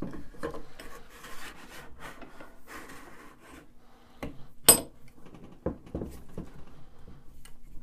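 A board being slid between a woodworking vise's oak jaws and clamped, the vise's metal sliding handle bar turned by hand: wood scraping and rubbing at first, then a run of knocks, with one sharp metallic clank a little past halfway.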